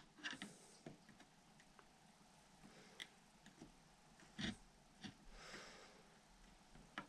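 Near silence: room tone with a few faint small clicks and a soft breath.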